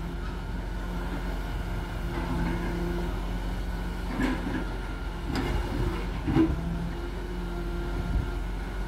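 Grapple loader truck's engine running steadily while its hydraulic knuckleboom works the grapple over the logs, with three knocks of wood, about four, five and six seconds in.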